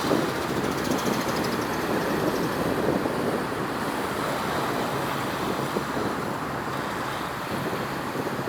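Steady outdoor roar of road traffic hum mixed with wind on the microphone, with no distinct events.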